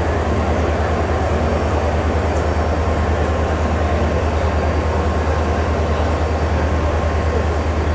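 Steady low rumble and hum inside a coach of the Kanyakumari–Chennai Express, with no change in level; a faint thin tone sits over it from about a third of the way in.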